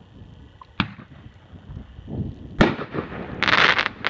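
A 500-gram Big Mac consumer fireworks cake firing. There is a sharp launch pop about a second in and a loud burst bang near the middle, then about half a second of dense crackling and one more pop at the end.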